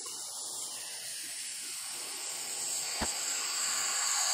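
Hot-air plastic welder hissing steadily as compressed air blows through its heated nozzle onto the plastic welding rod, getting a little louder near the end. A single sharp click about three seconds in.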